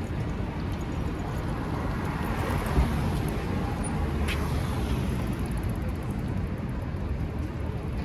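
City street traffic: steady road noise with a vehicle passing, swelling about two to three seconds in, and a brief thump near the three-second mark.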